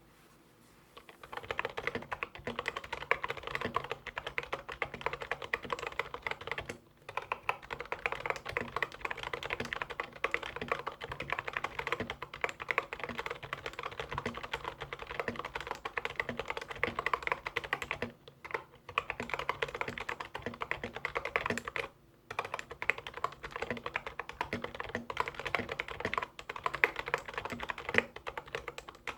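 Typing on a stock Cherry G86-52400 membrane keyboard: fast runs of keystrokes start about a second in, with three short pauses along the way.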